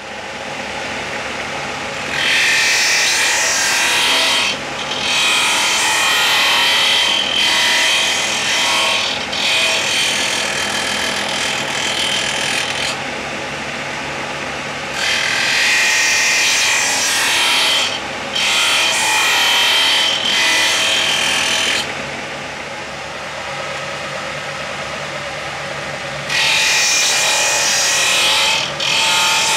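Axminster bench disc sander running with a steady motor hum. The ends of thin birch plywood strips are pressed into the spinning disc about seven times, each pass a rasping grind of a few seconds as the strip is swung on a pivot-pin jig to round its end. A longer stretch of the motor alone runs in the last third.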